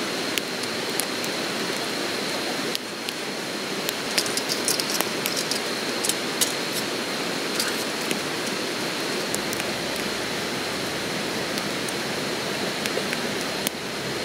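Wood campfire burning in a fire pit, with irregular sharp crackles and pops from the burning logs, over a steady rush like flowing river water.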